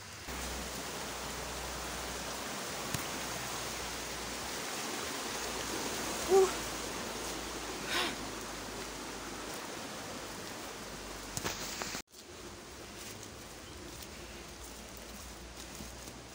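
A steady outdoor rushing noise, with one short, loud vocal call about six seconds in, a cattle herder's call to the cows. The rushing cuts off abruptly about twelve seconds in, and a quieter outdoor background follows.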